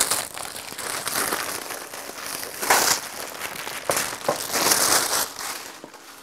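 Cardboard box and paper packaging rustling and scraping in several irregular bursts as the box is opened and its tape pulled off.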